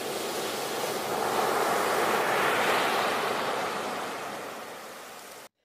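Ocean surf: waves breaking and washing up a beach, a steady rushing that swells about halfway through and then fades away, cutting off abruptly near the end.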